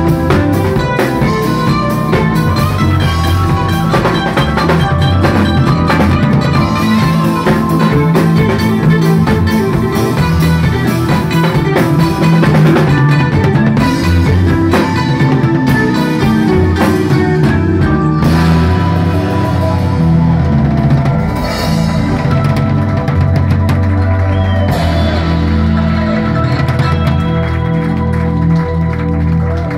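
Live band playing: drum kit, electric bass and guitars. The drumming is busy, then stops about two-thirds of the way through, leaving the bass and guitars playing on.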